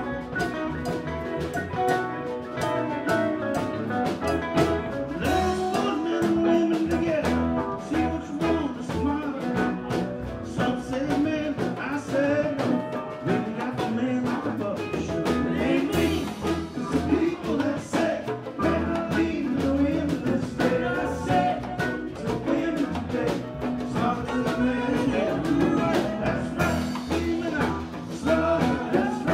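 Live band playing a bluesy, jazz-tinged tune, with guitar and a drum kit keeping a steady beat.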